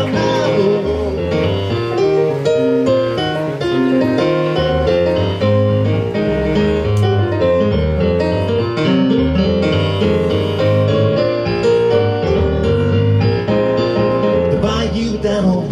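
Digital stage piano played live: an instrumental piano break of steady, rhythmic chords and melody lines.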